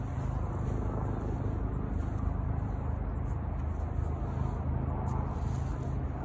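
Steady low outdoor rumble, even in level, with a faint tap about five seconds in.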